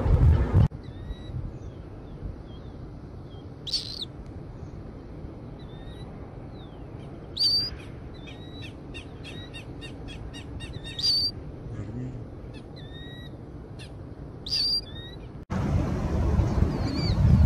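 Killdeer calling: a string of faint, short, high peeps, with a louder sharp call about every three and a half seconds and a brief rapid series of ticks midway. Low rumbling noise, like wind on the microphone, at the very start and again in the last two seconds.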